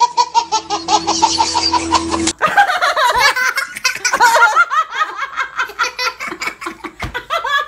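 A baby's belly laugh in quick rhythmic bursts, about seven a second, cut off abruptly a little over two seconds in. A woman then laughs hard in long bouts.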